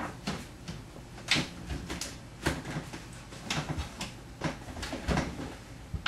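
Repeated knocks, clunks and rattles of a person squeezing into an emptied refrigerator, with the fridge door being pulled shut.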